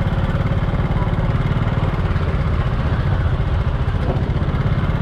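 Small motor scooter engine running slowly close by, a steady low engine sound without pauses.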